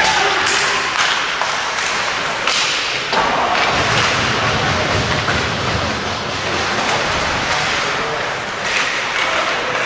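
Ice hockey rink sounds: skates scraping on the ice, with repeated knocks of sticks and puck and thuds against the boards over a steady arena din.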